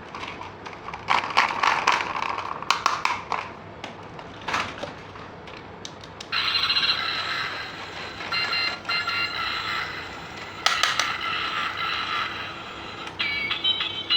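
Plastic toy parts being handled: clicks and scrapes for the first few seconds. From about six seconds a bright electronic beeping tune plays, like a toy's sound chip, changing notes every fraction of a second.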